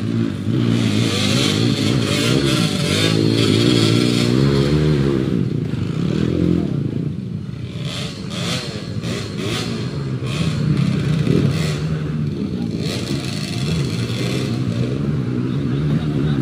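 Trail motorcycle engine revving up and down as it is ridden, its pitch rising and falling again and again with the throttle.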